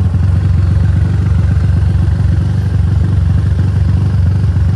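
Motorcycle engine running steadily under way, heard from the rider's seat as a loud, even low drone.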